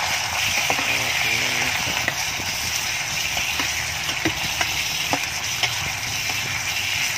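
Pork cubes sizzling in hot fat and broth in a pot while being stirred with a ladle: a steady hiss with scattered small pops and clicks.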